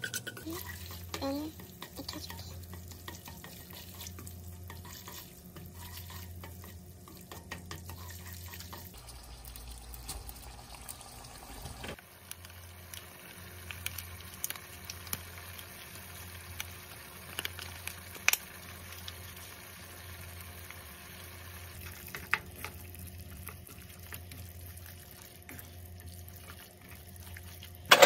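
Food sizzling in a frying pan while being stirred, with scattered light clicks of a utensil against the pan.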